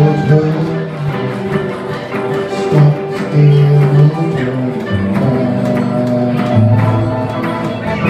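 Live band music from a small ensemble: plucked guitar with sustained pitched notes over a steady rhythm of strums or claps.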